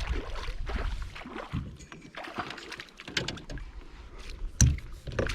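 Water sloshing and splashing around a small fishing boat, with handling knocks and rustles, while a hooked small rainbow trout is played in. One sharp, louder knock comes about four and a half seconds in.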